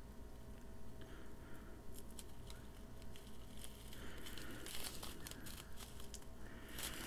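Small clear plastic bag of round acrylic diamond-painting drills being squeezed and turned in the fingers: soft crinkling of the plastic, scattered at first and busier from about four seconds in.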